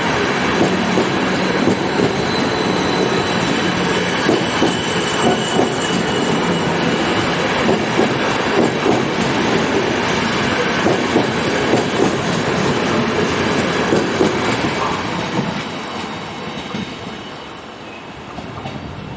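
Train rolling through the station, its wheels clattering over rail joints and points with a faint high wheel squeal, then fading away about 15 seconds in.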